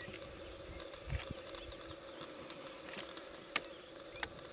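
Faint outdoor ambience: a steady low hum, a soft thump about a second in, and two sharp clicks near the end.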